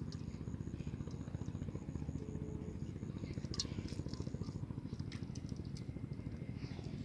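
A steady low rumble, with a few faint clicks and rustles from a cast net being picked over by hand.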